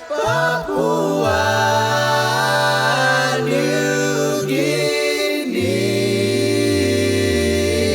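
Male vocal group singing wordless a cappella harmonies, held chords that shift every second or two over a low bass voice.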